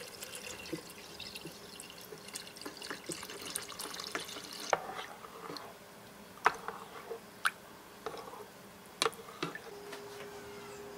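Water trickling, then dripping, with scattered light clicks and clinks. A steady hum starts near the end.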